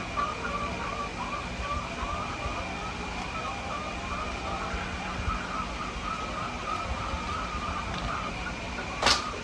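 Hens in a coop giving a continuous, wavering murmur of calls over a steady high-pitched tone and a low hum, with one sharp click near the end.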